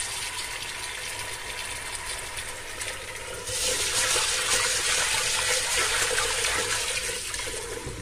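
Tap water running into a stainless steel pot of mung beans, then a hand swishing and rubbing the beans in the water, louder from about halfway through: the beans being washed.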